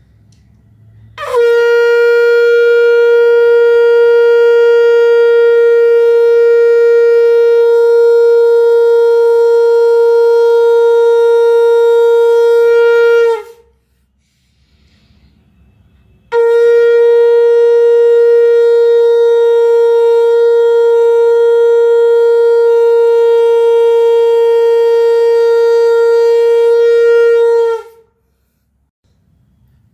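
Conch shell (shankh) blown in two long, steady blasts of about twelve seconds each, separated by a pause of about three seconds. Each blast swoops up briefly into one held pitch and drops off at the end.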